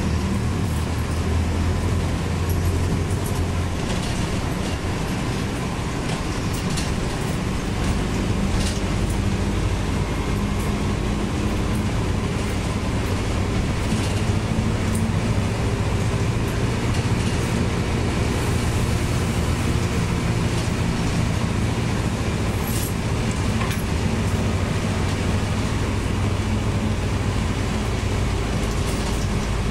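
Marcopolo Torino city bus heard from inside the cabin while driving: a steady engine drone whose pitch shifts several times with acceleration and gear changes, over road noise, with a few brief rattles and clicks.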